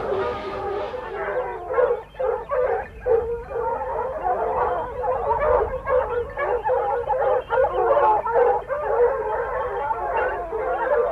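A pack of boar-hunting scent hounds baying continuously, many voices overlapping: the hounds giving tongue as they run a wild boar.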